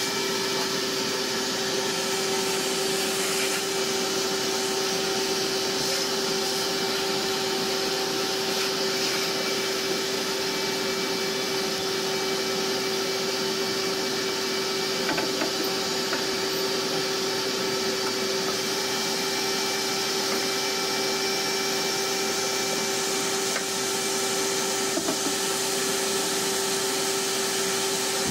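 High-suction shop vacuum feeding the table saw's rear dust port, running steadily with a constant whine over a rushing hiss. There are a few faint knocks midway and near the end.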